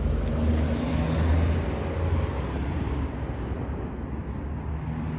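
Four-cylinder engine of a 2005 Nissan Altima idling steadily with one ignition coil still disconnected, while the last coil is being plugged back in. There are two light clicks right at the start. The running swells slightly louder in the first two seconds, then settles.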